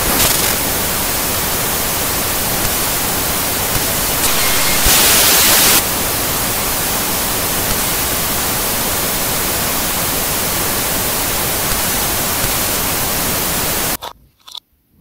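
Steady TV-style static hiss, with a brighter, louder stretch of hiss about four to six seconds in. It cuts off suddenly near the end, leaving two short faint sounds.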